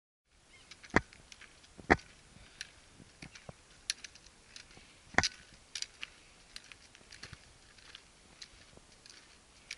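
Trekking poles and boots on stony ground: irregular sharp clicks and knocks, three of them loud, about one, two and five seconds in, with many fainter ticks between.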